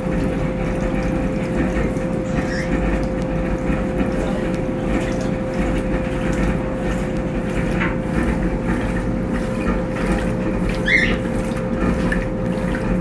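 Brastemp Tira Manchas Pro 12 kg washing machine running a load of blankets: water churning and sloshing over a steady hum, with a brief high squeak about eleven seconds in.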